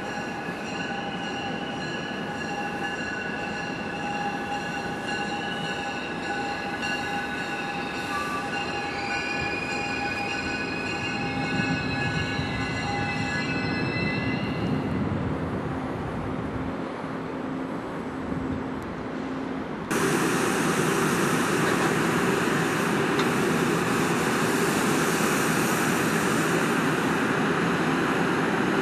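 NJ Transit commuter train's steel wheels squealing on a curve as it rolls in: several steady high-pitched squeal tones over a low rumble. About two-thirds of the way through the sound cuts abruptly to a louder, even rushing noise.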